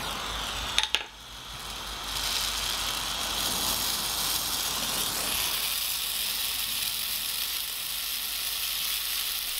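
Small oxy-fuel torch flame hissing steadily as it heats steel rivets. Two sharp clicks about a second in, after which the hiss briefly drops and then comes back.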